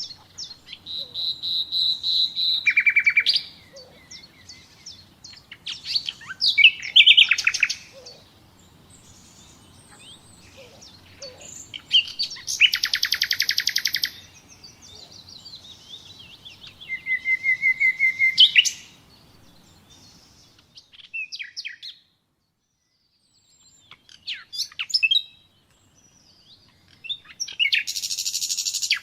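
Nightingale singing in separate phrases a few seconds long with short pauses between, mixing a held whistle, fast repeated notes, dense rattling trills and a run of notes rising in pitch. About two-thirds of the way through there is a moment of dead silence, as if at an edit.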